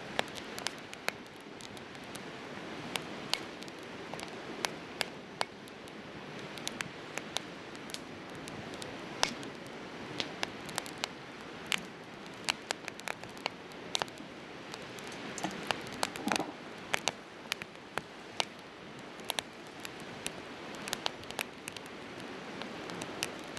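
Campfire of split firewood crackling: many sharp irregular snaps and pops, several a second, over a steady hiss.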